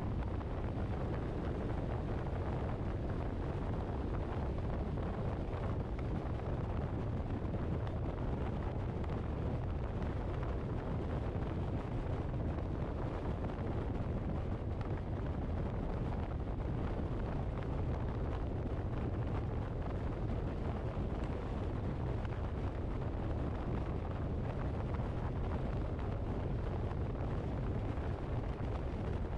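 Steady low rumble of road and wind noise from a car on the move.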